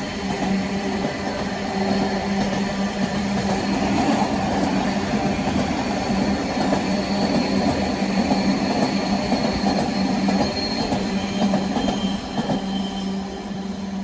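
A train running past on the rails: a steady hum over the rumble of wheels on track, loudest in the middle and fading near the end.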